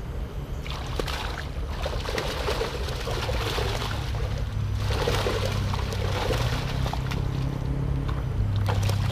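Water splashing and sloshing in several surges at the edge of a floating fish-cage net, over a steady low hum.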